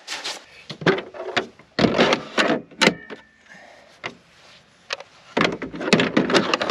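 Hard plastic knocks and clicks as Greenworks 80V battery packs are handled and slotted into the snowblower's battery compartment. They come in several clusters, with a quieter spell about midway.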